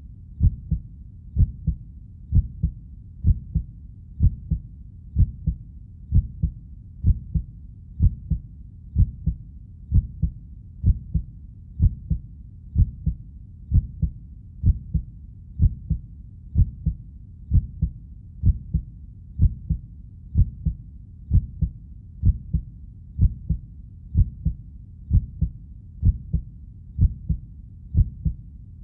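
Heartbeat, a steady lub-dub of paired low thumps repeating about once a second.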